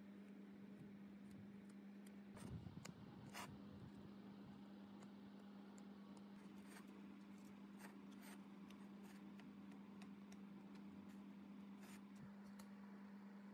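Faint scraping and clicking of a plastic spreader smoothing filler putty onto steel discs, with a few slightly louder clicks about three seconds in, over a steady low hum.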